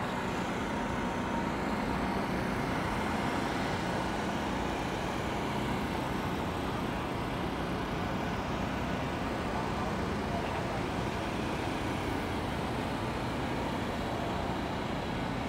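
Steady low rumble of vehicle engines under even outdoor background noise, with no single event standing out.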